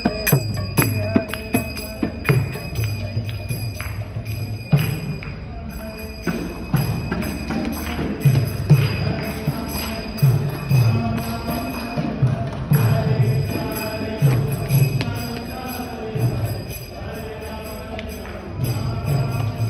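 Devotional kirtan music: a drum beats a slow, steady pulse about once a second while small hand cymbals (kartals) ring and jingle over it.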